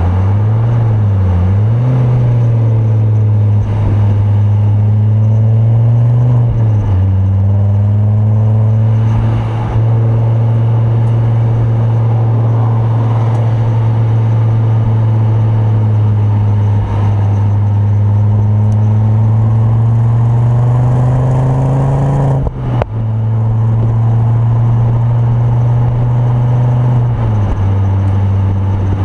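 Tuned Ford Focus RS Mk2's turbocharged five-cylinder engine, with a Mountune 420 bhp conversion and full Milltek exhaust, heard from inside the cabin at speed on track. Its note climbs slowly under load, cuts out briefly about 23 seconds in, and drops in pitch near the start, about 7 seconds in, and again near the end.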